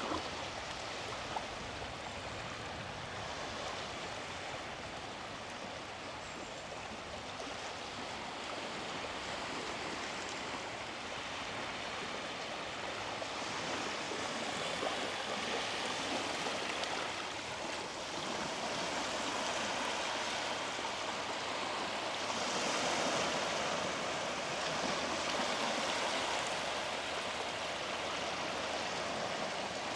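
Small sea waves washing onto a beach: a steady hiss of surf that swells and eases, louder in the last third.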